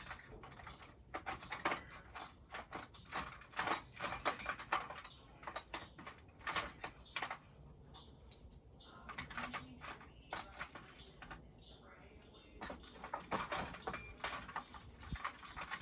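Metal hand tools clinking and clattering in irregular bunches of sharp clicks, as tools are picked up, set down and sorted through.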